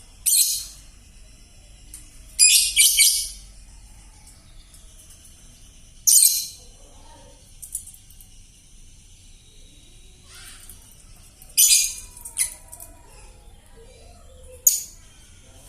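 Young, just-weaned lovebird giving short, harsh, raspy calls in scattered bursts a few seconds apart, some coming two or three in quick succession. The chatter is hoarse and cracked, as the voice of a young bird still is.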